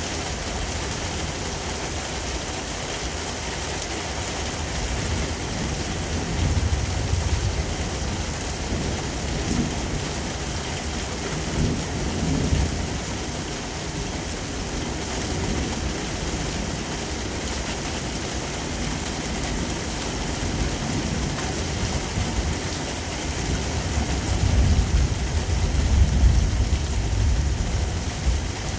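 Thunderstorm: heavy rain falling with a steady hiss, and low thunder rumbling up three times, the longest and loudest rumble near the end.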